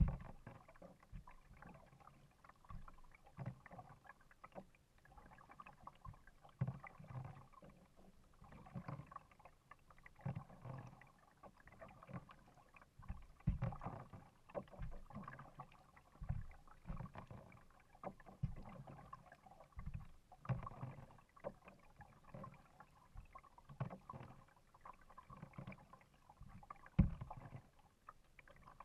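Kayak paddling on calm water: the paddle blade dipping and pulling through the water in repeated soft splashes and drips every second or so, with low thumps against the hull and one louder thump near the end.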